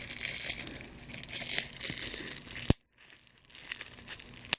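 Bubble wrap crinkling and rustling as it is handled, with a sharp snap about two and a half seconds in and another near the end.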